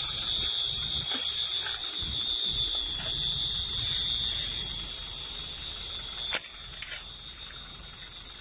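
An alarm sounds one steady, unbroken high-pitched tone over a low rumbling noise. A few sharp clicks come about six and a half seconds in, and the rumble drops a little from there.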